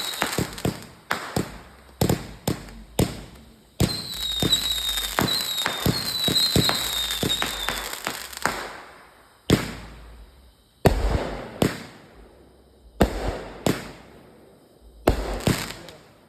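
Consumer multi-shot fireworks cake firing: a fast string of bangs and crackling with high wavering whistles in the first half, then single loud bangs with echoing tails about every second and a half.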